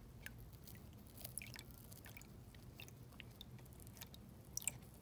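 Faint squishing and crackling of a screwdriver tip pushing into a water-soaked foam ball, a run of small clicks with the loudest near the end.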